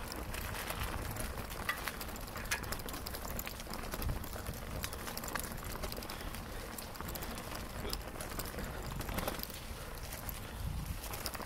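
Bicycle rolling along an unpaved track: tyres crackling and crunching over the surface, with scattered irregular knocks and rattles over a steady low rumble.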